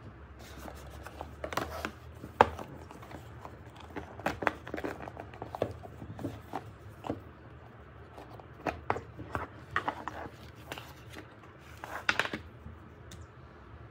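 Irregular light clicks and knocks of objects being handled, with one sharp knock about two and a half seconds in and a quick cluster near the end.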